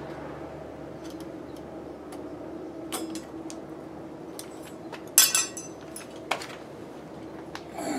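Screwdriver and screws clicking and clinking against a metal electrical box as a duplex receptacle is screwed back into it. A short, louder metallic clatter comes about five seconds in and a single click a second later.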